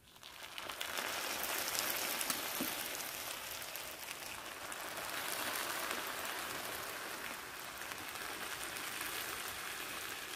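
Dense, steady sizzling and crackling of liquid poured over a tray of layered baklava, fading in over the first second and cutting off abruptly at the end.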